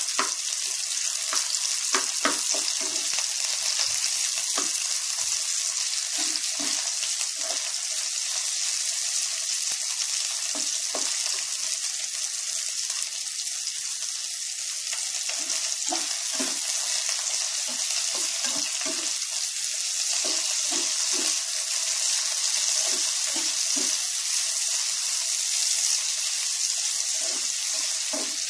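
Sliced onions sizzling in hot oil in a nonstick frying pan, being fried until brown, with short scrapes and taps of a slotted spatula stirring them every few seconds.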